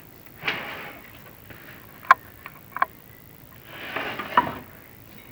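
Chimney inspection camera and its cable scraping and knocking against the flue walls as it is lowered down the chimney: two rushing scrapes and a few sharp clicks.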